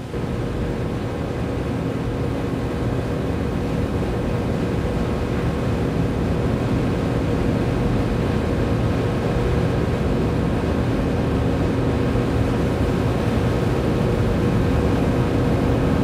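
A steady low hum with a few faint steady tones in it, growing slightly louder; no separate clicks or knocks of the nuts being turned.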